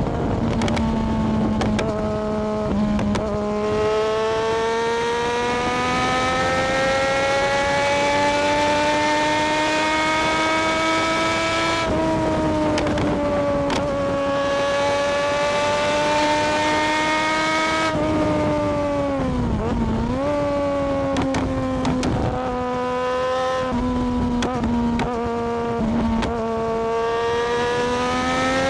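Triumph Daytona 675R's inline three-cylinder engine under way. Its note climbs slowly over several seconds and then holds. About two-thirds through it dips sharply and picks up again, then runs fairly steadily.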